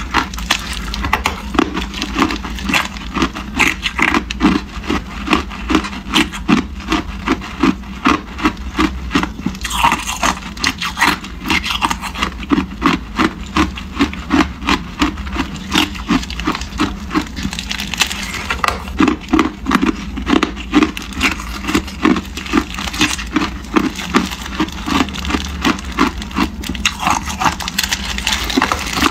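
Hard clear ice cubes being bitten out of a plastic ice-cube bag and chewed, a steady run of crunches at about two a second, with the bag crinkling.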